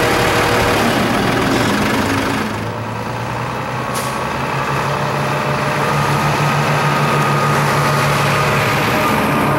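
Diesel engine of a Hino anti-icing agent spreader truck running. About two and a half seconds in the sound changes to the truck driving slowly toward the listener with a steady low engine note, and a brief hiss about four seconds in.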